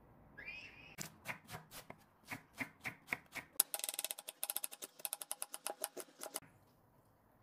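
Dry, wood-block-like percussive clicks, first spaced at about five a second, then a fast run of roughly ten a second lasting nearly three seconds that stops abruptly. A brief rising tone comes just before the clicks begin.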